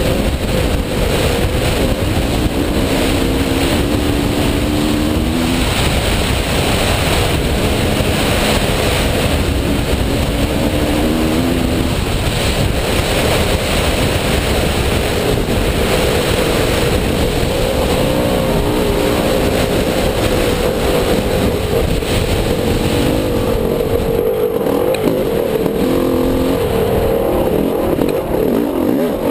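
Dirt bike engine running under load on a sandy trail, its pitch repeatedly climbing with the revs and then dropping back.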